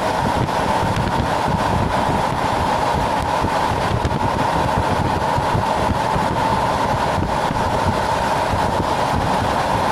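Steady running noise inside a DR2700 diesel railcar as it passes through a station at speed: the engine and the wheels on the rails make an even rushing drone with no breaks.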